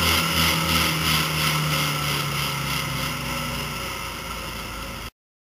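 1969 Mercury Cougar's V8 engine heard from inside the cabin with wind and road noise at speed on the drag strip. It grows steadily quieter as the car slows at the end of the pass, and the sound cuts off abruptly about five seconds in.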